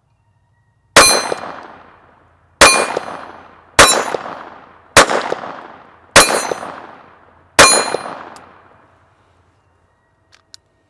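Six shots from a Beretta 21A Bobcat .22 LR pistol, fired at an unhurried pace about a second or more apart. Each shot is followed by the ring of a steel plate target being hit, dying away over about a second.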